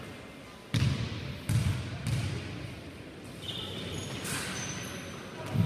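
Basketball bouncing on a wooden gym floor: three echoing bounces in quick succession about a second in, and another near the end. A few short high squeaks come in between.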